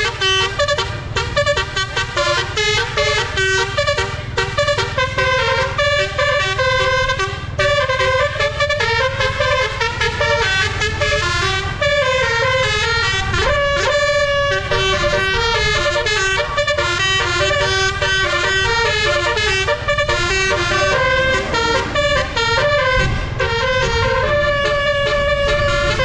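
Telolet basuri musical air horn on a Trans Dinasty bus playing a fast, continuous tune of rapidly changing notes, over a steady low rumble of engine and road noise.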